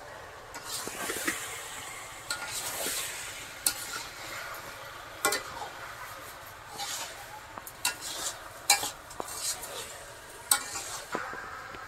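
Raw chicken being mixed with spices in a metal bowl: wet rustling and squishing, broken by sharp metal clinks several times, the loudest about halfway through and near the end.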